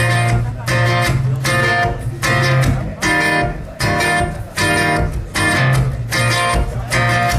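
Guitar strumming a steady chord pattern, about two strums a second, as the intro to a song.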